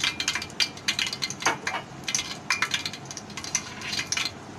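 Cooking oil heating in a steel pot, giving a steady scatter of irregular sharp crackles and ticks, several a second.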